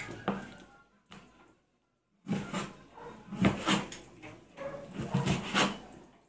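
Chef's knife slicing raw pork on a plastic cutting board, the blade knocking on the board in a series of short strokes in several clusters.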